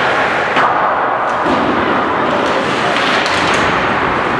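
Ice hockey play in an arena: a steady rink din with several sharp knocks and thuds, the loudest about half a second in, from the puck, sticks and players hitting the boards.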